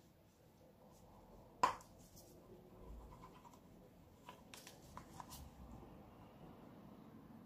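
Small handling noises as gloved hands work with plastic mixing cups, a stir stick and a pigment container: one sharp click a little under two seconds in, then a cluster of lighter clicks and taps between about four and five and a half seconds, over faint room hiss.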